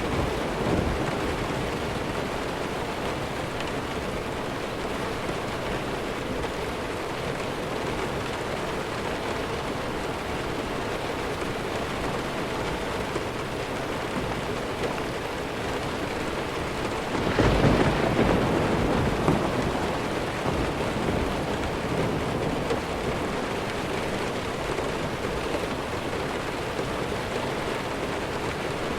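Steady heavy rain falling, with a rumble of thunder about two-thirds of the way through that swells up and fades over a couple of seconds.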